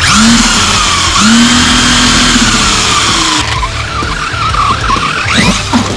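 Electric RC rock bouncer's Castle Copperhead 10 brushless motor whining up and down in pitch with the throttle, while its tires spin and skid in loose dirt. The loud scrabbling stops abruptly about three and a half seconds in, and the motor whine carries on.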